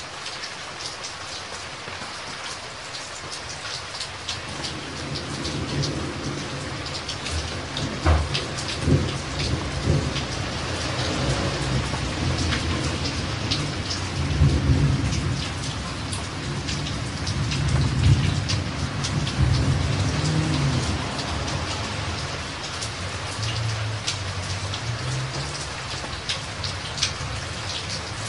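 Steady rainfall with scattered sharp drop hits, under a long low rumble of thunder. The rumble builds about four seconds in, swells and rolls through the middle, and eases off toward the end.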